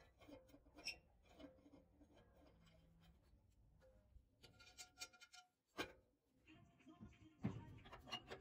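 Faint, scattered clicks and knocks of steel pipe parts being handled and fitted together, with a sharper knock about six seconds in and a busier run of knocks near the end.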